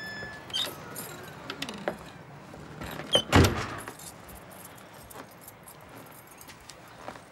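A bunch of keys jangling and clicking as someone comes in, with one loud thump a little over three seconds in.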